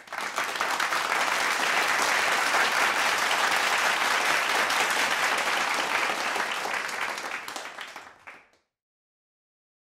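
Audience applauding, a dense patter of many hands clapping that holds steady for about six seconds, then thins out and cuts off abruptly about eight and a half seconds in.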